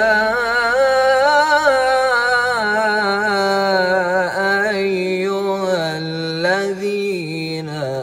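A man's solo chant-style singing in a melismatic style: long held notes decorated with wavering runs, dropping to a lower pitch near the end.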